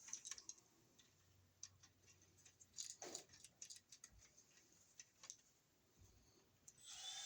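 Faint, scattered clicks and ticks of a screwdriver working a wall receptacle's brass terminal screw down onto the red wire's loop.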